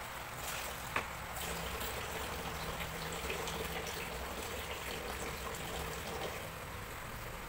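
Kitchen tap running steadily, with water splashing and sloshing as hands wash produce in a plastic container of foamy water. A single short knock about a second in.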